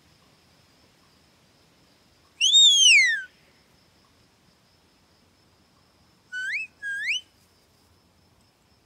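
A person whistling, most likely to a dog: one long loud note that rises and then falls, then, a few seconds later, two short rising whistles in quick succession.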